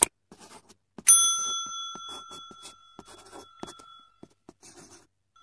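A single bright metallic ring, like a small bell, struck about a second in and dying away over about three seconds, with a fainter ring of the same pitch near the end. Faint scraping and clicking from work at the kitchen counter runs around it.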